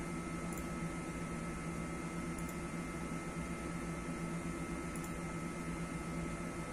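Steady background hum and hiss with a few faint steady tones, unchanging throughout.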